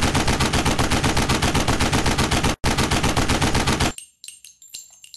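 A long burst of rapid automatic gunfire, about seven shots a second, with a brief break about two and a half seconds in. It stops about four seconds in and gives way to light, ringing metallic clinks.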